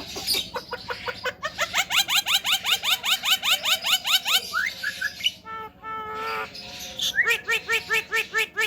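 Javan myna calling: a fast run of short rising squawky notes, about five or six a second, then a brief held tone in the middle, then another fast run of notes near the end.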